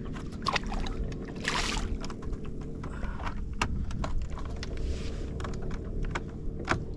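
A boat's motor runs with a steady low drone, under scattered sharp clicks and knocks of gear being handled on the boat. About one and a half seconds in there is a short hiss.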